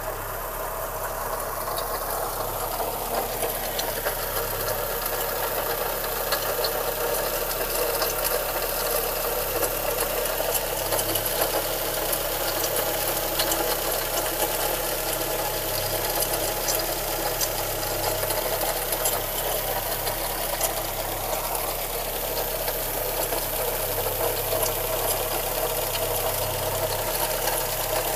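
VW Golf 1 Cabrio's JH 1.8-litre four-cylinder petrol engine idling steadily, with a light, quick ticking over the running.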